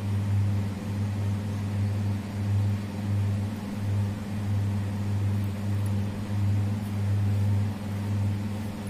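A steady low droning hum with a fainter tone an octave above it, swelling and dipping slightly in strength.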